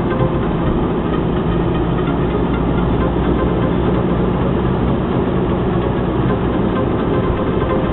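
Jaguar X-Type cruising on an open road, heard from inside the car: a steady engine drone with low hum under even tyre and road noise.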